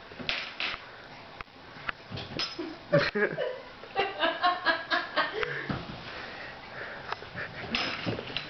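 A Shih Tzu puppy scuffling and snuffling at a stuffed toy on a tile floor, with short sniff-like puffs and light taps. About four seconds in, a woman laughs in a quick run of ha-ha pulses.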